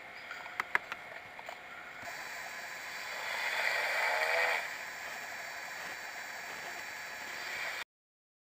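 A single snore, lasting about a second and a half, about three seconds in, over a steady hiss. A few faint clicks come near the start.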